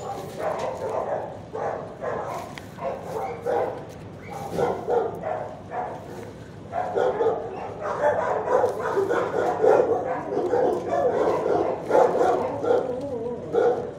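Several dogs in a shelter kennel barking and yipping over one another without pause, growing louder about halfway through.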